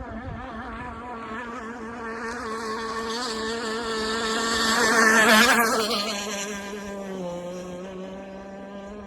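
Two-stroke gas engine of a Zippkits SLR Missile Thunderboat RC hydroplane running at speed as the boat passes by. The steady engine note grows louder to a peak about halfway through, then drops in pitch and fades as the boat moves away.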